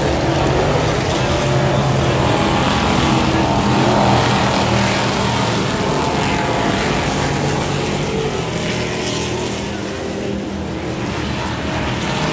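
Off-road race truck engine running hard at high revs, loud and continuous.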